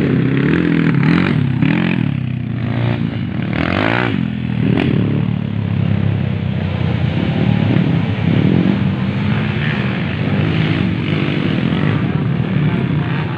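Racing motorcycles revving hard on a dirt track, engine pitch rising and falling as riders accelerate and pass. Engine noise from the field keeps on after the bikes in view have gone by.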